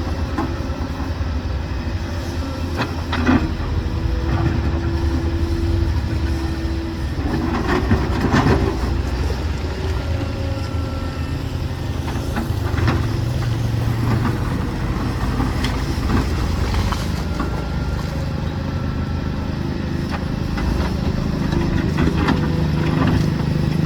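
Heavy diesel construction machinery running: a steady low engine drone that rises and falls in pitch as the load changes, with a few short metallic knocks.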